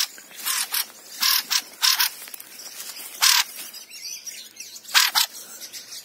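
Thrush giving short harsh calls, about eight of them, some in quick pairs.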